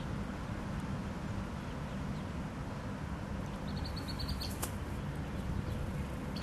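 Mallard ducklings peeping: a quick run of short, high peeps about four seconds in, over a steady low rumble.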